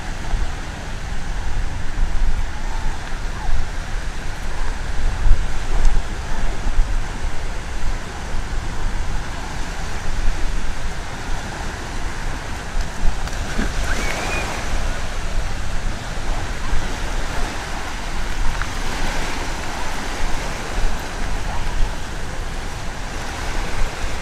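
Beach ambience: surf washing ashore and wind buffeting the microphone in a heavy, uneven rumble, with faint distant voices.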